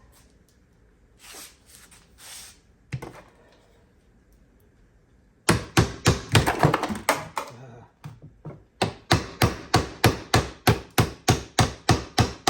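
Hammer tapping a U-joint's needle-bearing cap into an ATV prop shaft yoke. After a few faint knocks, a quick flurry of blows starts about halfway in, followed by a steady run of sharp strikes at about three a second.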